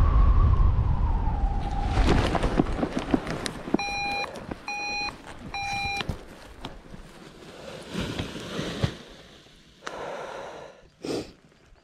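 Paramotor engine winding down after landing, its pitch falling until it dies away about two seconds in. Then come three short electronic beeps, a little under a second apart, and the rustle and clatter of the wing's risers and lines being handled.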